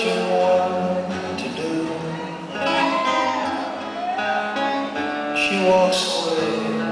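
Live band playing a slow song's instrumental intro, led by a strummed acoustic guitar, with held notes that change every second or so.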